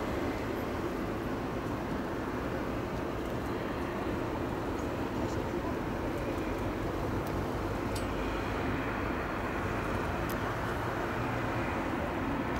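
Airbus A380's jet engines running with a steady, even rumble.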